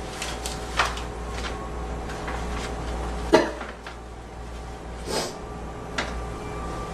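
A young woman coughing in several short, separate coughs, the loudest about halfway through, over a steady low hum.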